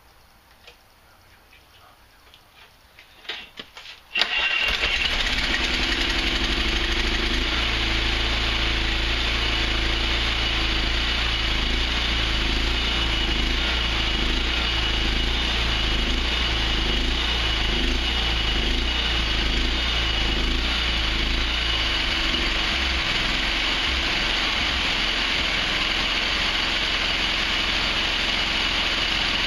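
Honda GX390 single-cylinder engine starting up about four seconds in, then running steadily, driving a belt-driven 3D-printed regenerative supercharger. A thin steady whine sits above the engine sound.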